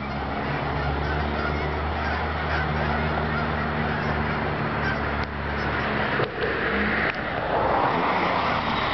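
A flock of migrating geese honking overhead, the calls thickest near the end. Under them runs a steady low hum that stops about six seconds in.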